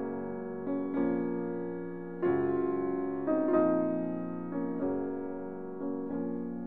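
Background piano music: slow chords struck about once a second, each ringing and fading.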